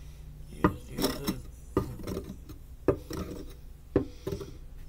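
Good Cook meat chopper's bladed head knocked down and ground against a wooden cutting board: sharp knocks about once a second, each followed by a short scraping rattle.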